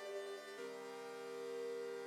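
Background music of sustained chords, changing to a new chord about half a second in.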